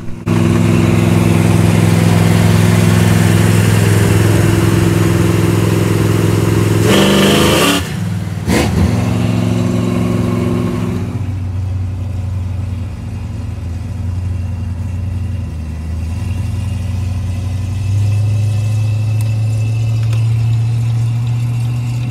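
Cars running at road speed, heard from inside a car following a 1968 Chevelle with a 396 V8: a steady low engine drone under loud wind and tire rush, with a brief louder rush about seven seconds in. After about eleven seconds the rush drops away, leaving a quieter steady drone.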